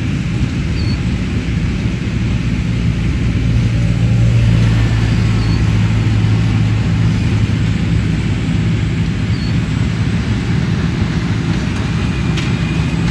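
Tractor diesel engine running steadily under load as it pulls a working hay baler, a low drone that swells a little about four seconds in.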